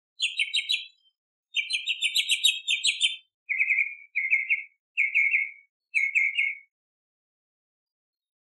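Tropical mockingbird singing. It gives two bursts of high, rapid, repeated notes, then switches to a lower phrase of quick notes that it repeats four times, about once a second.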